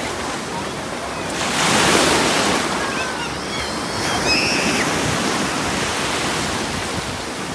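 Surf washing onto the beach in a steady rush, with one wave breaking louder about two seconds in.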